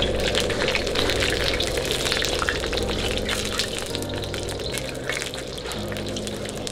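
Eggs frying in hot oil in a wok, a continuous sizzle dense with small crackles and spits.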